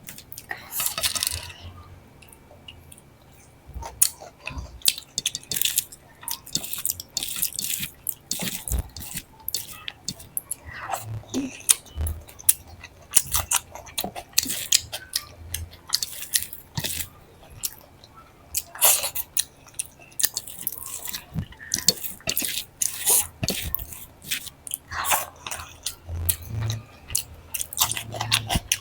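Close-miked eating: chewing, mouth smacks and crisp crunches at an irregular rhythm, as dal, rice and fried vegetables are eaten with crunchy sides.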